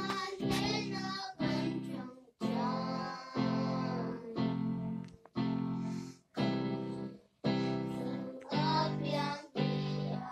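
Children singing a worship song to an electronic keyboard accompaniment. The keyboard plays held chords that break off briefly between phrases, about once a second.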